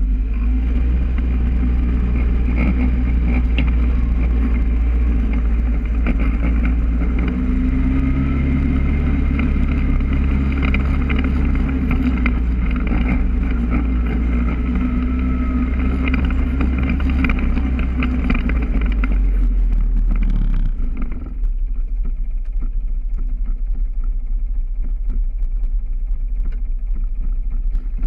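Polaris ATV engine running while the quad is ridden, with a steady low engine note. About three quarters of the way through the engine eases off and the higher noise falls away, then it picks up again at the end.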